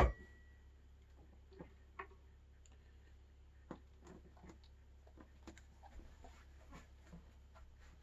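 Faint, scattered light clicks and taps of small bicycle headset parts being handled, sparse at first and coming more often from about four seconds in, over a steady low hum.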